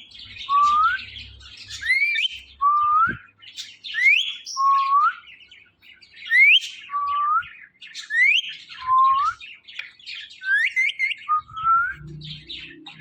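A green parrot whistling one two-note phrase over and over, about every two seconds: a high rising note, then a lower rising note. Other birds chirp faintly behind it.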